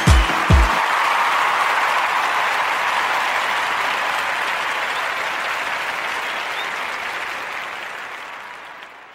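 A house track's kick drum beat stops in the first second, leaving applause and crowd noise that slowly fades away.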